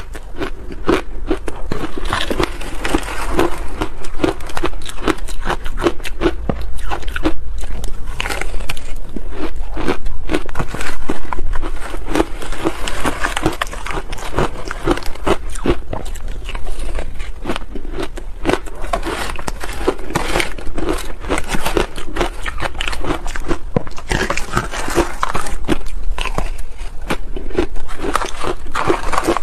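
Soft shaved ice dusted with matcha powder being bitten and chewed: a dense, continuous run of crisp crunches and crackles, with the ice now and then scooped and shifted in a plastic tub.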